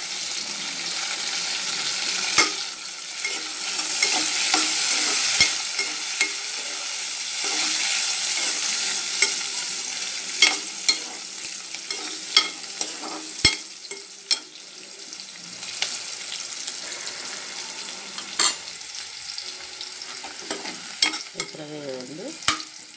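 Onions, green chillies and curry leaves sizzling in hot oil in an aluminium pressure cooker as they are stirred, the metal spatula clicking and scraping against the pan every second or so. The sizzle is loudest in the first half and dies down in the second.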